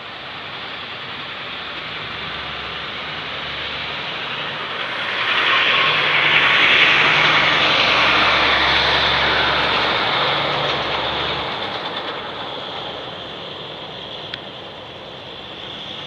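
A vehicle passing: a steady rush of noise with a low engine hum under it, swelling about five seconds in, then fading away over the next several seconds.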